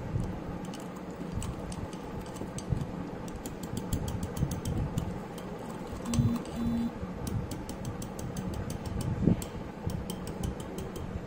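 Small wire whisk beating cake batter in a ceramic mug: rapid, irregular clicks and taps of the wires against the inside of the mug. Two short beeps sound a little past halfway.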